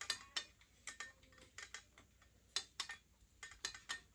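Light, irregular metallic clicks and ticks, a few a second, as a bolt is screwed with the small included tool into a corner joint of a metal dog bowl stand.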